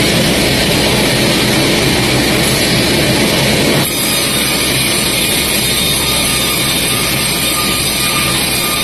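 Heavy sawmill machinery running loudly and steadily as a log is sawn, with an abrupt change in the sound about four seconds in.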